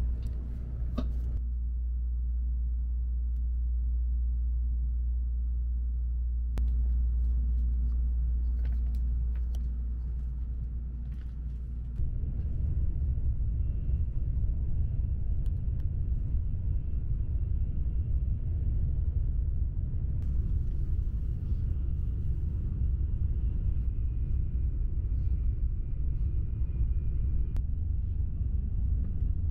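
Steady low rumble of a Shinkansen bullet train heard inside the passenger cabin, turning rougher and a little louder about twelve seconds in. A couple of faint clicks come in the first seven seconds.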